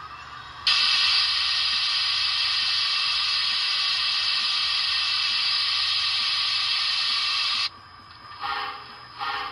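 Model steam locomotive's sound-decoder speaker playing a loud, steady steam hiss, a blowdown-style release. It switches on abruptly about a second in and cuts off just as abruptly near the end. Two short chuffs follow, under a second apart.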